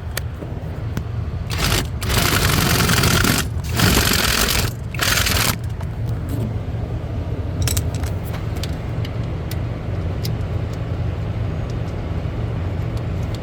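A power driver runs in three bursts of a second or two on a clutch switch housing screw, the gun set to reverse so the screw won't go in. A steady low rumble runs underneath, with a few light clicks near the end.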